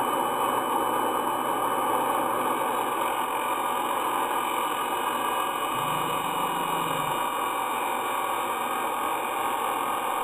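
Steady hiss and whir of a grinding wheel with a file held to it for a spark test.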